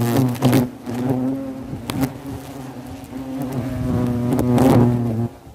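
Hornets buzzing loudly close to the microphone, the buzz wavering in pitch and swelling as they fly past. A few sharp clicks sound through it.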